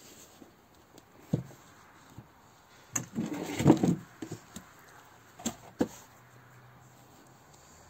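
A few sharp knocks and clicks from objects being handled, with a short burst of clattering about three to four seconds in.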